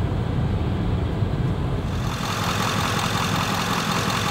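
A diesel motorhome's engine running steadily. About two seconds in, the low rumble drops back and a steady hiss higher up takes over.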